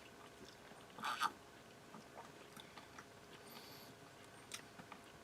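A man drinking pale ale to cleanse his palate: a short gulp of beer swallowed about a second in, then a few faint small clicks.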